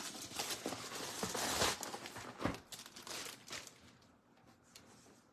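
Crinkling and rustling of a collectible figure's packaging being handled, with a few small knocks, stopping about three and a half seconds in.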